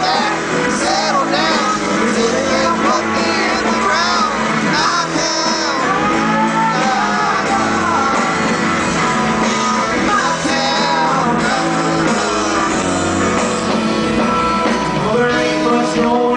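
Live band playing: a man singing lead into a microphone over guitar and bass guitar.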